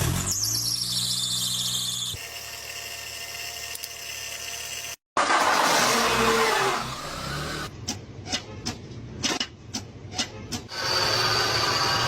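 Several short car fault-noise recordings cut together: a whine that falls in pitch, then a steady whine, a loud rushing hiss after a brief dropout, a run of irregular clicks and knocks, and a steady whirring hum near the end.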